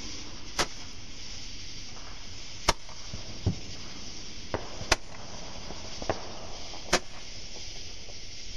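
Fireworks going off: scattered sharp pops and cracks at irregular gaps of about a second or two, over a steady hiss.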